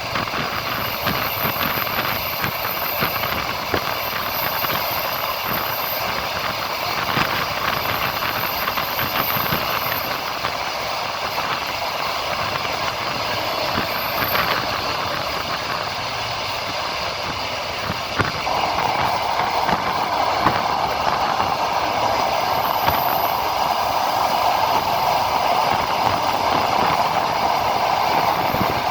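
Passenger train running along the line, heard from a carriage window: a steady rush of wheels on rail with scattered clicks from the track. The noise grows louder about two-thirds of the way in.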